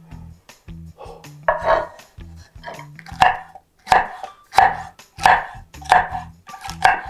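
Chef's knife chopping a green bell pepper on a wooden cutting board: about eight separate cuts, roughly one every two-thirds of a second, starting about a second and a half in.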